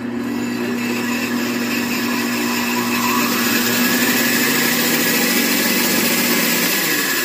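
Central Machinery 40981 12-inch three-wheel band saw switched on and running, a steady motor hum with the whir of the blade over it. It is running freshly reassembled, with its bearings and belt tension adjusted.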